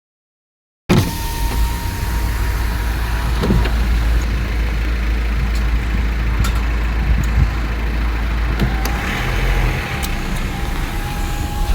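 A motor vehicle running, with a steady deep rumble and a faint steady whine that drops slightly in pitch about eight seconds in.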